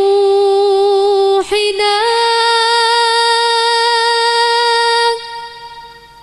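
A woman's voice singing long held notes. It steps up to a higher note about two seconds in, holds it, then dies away near the end.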